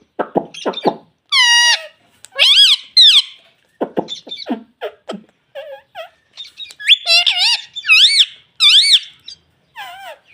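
Indian ringneck parrot chattering: quick clicks and short mutters broken by several loud squeaky calls that sweep up and down in pitch, most of them in the second half.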